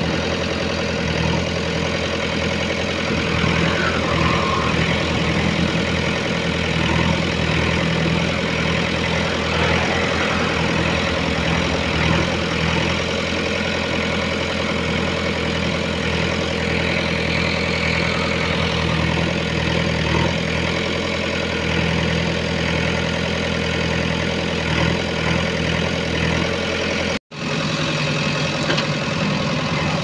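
JCB backhoe loader's diesel engine idling steadily, cut off for an instant near the end.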